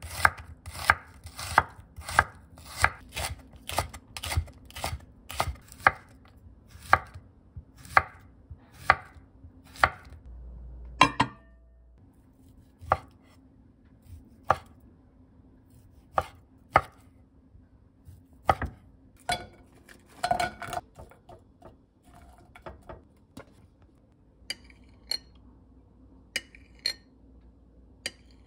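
A chef's knife chopping onion and then sausage on a wooden cutting board: sharp knocks of the blade on the board, about two a second at first, slowing to about one a second and then sparser. Fainter light clicks follow near the end.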